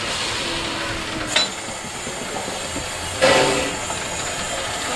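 C17 967 steam locomotive letting off a steady hiss of steam, with a sharp click about a second in and a louder blast of exhaust about three seconds in.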